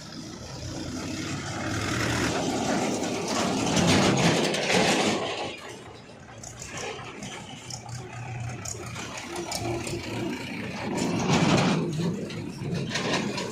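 Heavy diesel engine running, revving up under load twice, each time with a swell of louder, rougher noise, typical of a backhoe loader working its hydraulics.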